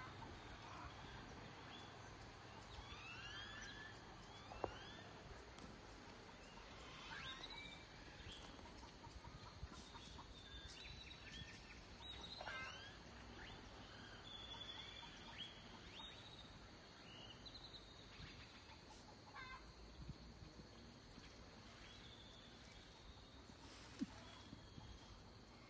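Faint rural outdoor ambience: scattered bird chirps and calls over a steady thin high-pitched tone and a low rumble. Two sharp clicks, about four seconds in and near the end, are the loudest sounds.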